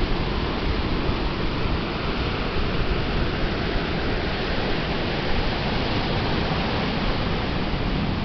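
Atlantic surf washing onto the beach in a steady, even wash of noise, with no single wave break standing out.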